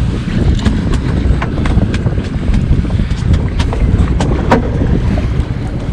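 Steady low rumble of wind on the microphone and the sportfishing boat's engine, with scattered sharp clicks and knocks.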